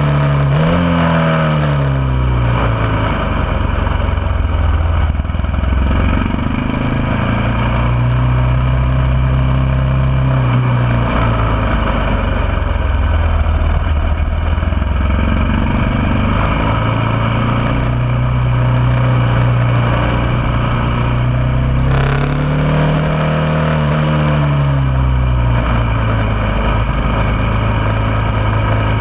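Motorcycle engine heard from an onboard camera, lapping a track: the pitch drops several times as the bike slows for corners, then climbs and holds along the straights. A sharp click comes about two-thirds of the way through.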